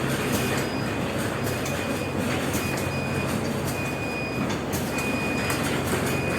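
Cookie-making machine running: a steady mechanical hum and clatter, with a thin high whine that comes and goes every second or so.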